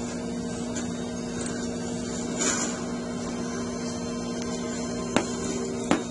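Steady electrical hum in a small room. A faint, short hiss comes about two and a half seconds in, and two sharp clicks near the end.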